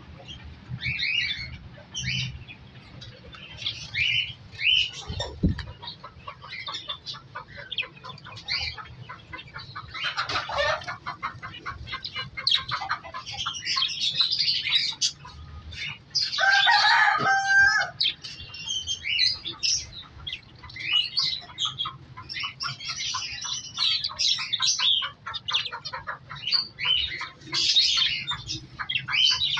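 A flock of budgerigars and zebra finches chirping and chattering together, a dense run of short calls and fast warbling. A louder, lower call stands out about two-thirds of the way through.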